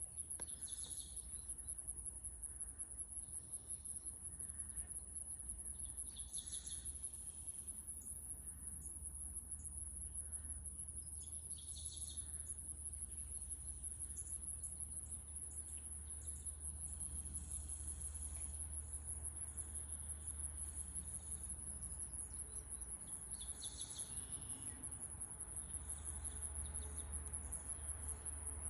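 Insects trilling: a steady high-pitched pulsing chorus that never lets up. A few short bird calls come in now and then.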